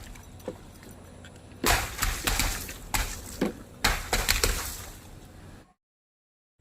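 Brittle objects being crushed and breaking: two bursts of crackling and crunching, one starting under two seconds in and one about two seconds later, after a few light clicks. The sound cuts off suddenly near the end.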